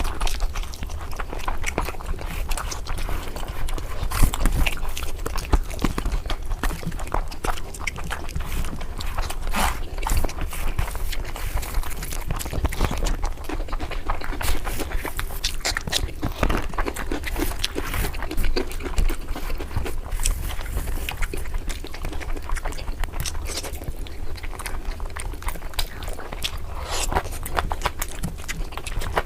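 Close-miked chewing and mouth smacking while eating curry: a dense, irregular run of short clicks and smacks.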